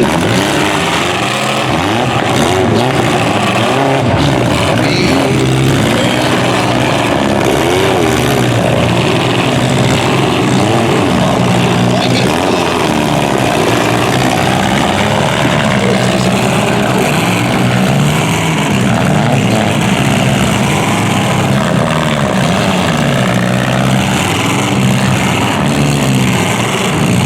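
Several demolition derby car engines running and revving together, their pitches rising and falling continuously.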